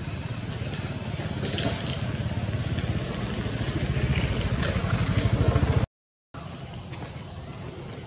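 Low engine rumble with a fast, even pulse, getting louder until it cuts off suddenly about six seconds in and returns quieter. A brief high falling squeak about a second in.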